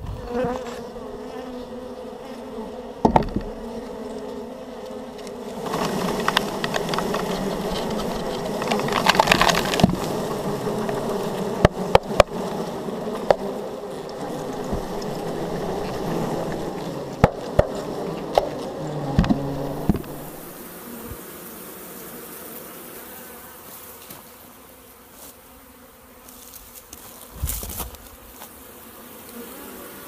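Honeybees buzzing in a steady hum around an open hive, louder through the middle and quieter in the last third. Sharp knocks sound a number of times in the first two-thirds.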